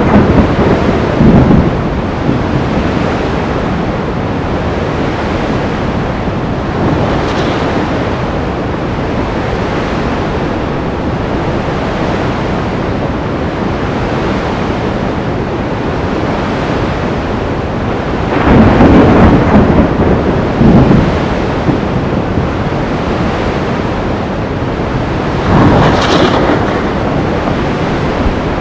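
Sea storm ambience: a steady roar of surf and wind, with louder swells of thunder and crashing waves near the start, about two-thirds of the way through and near the end.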